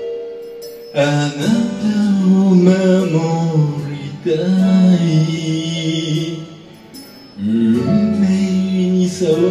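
A man singing a slow song in three long, drawn-out phrases, starting about a second in, about four seconds in and near the end, with quieter breaths between them.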